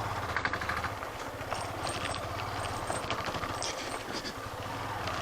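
Motorcycle engine running at low speed, with scattered knocks and rattles from riding over a rough unpaved track.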